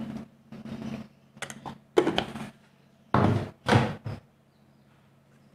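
A run of knocks, clunks and scrapes from a spice container and spoon as ground coriander is tipped onto semolina batter in a steel bowl, the loudest about two and three seconds in. A faint steady low hum runs underneath.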